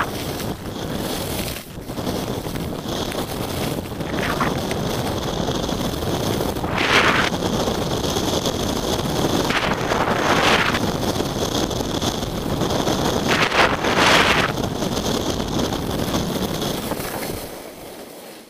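Wind rushing over the microphone of a skier's camera during a fast descent, with skis hissing through snow and three louder swishes spaced a few seconds apart. The noise fades near the end.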